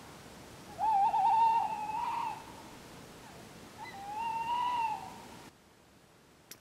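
Two owls calling to each other with long hoots: a wavering call about a second in, answered by a smoother rising-and-falling hoot about four seconds in.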